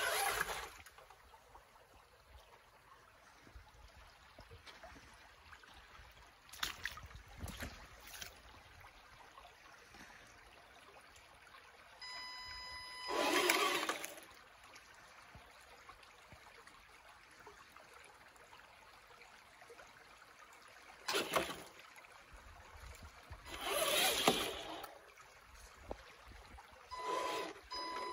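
Shallow creek water trickling steadily while a radio-controlled rock crawler drives through it, with a few louder bursts of splashing and rushing noise. Twice a thin, high whine is heard for a second or two.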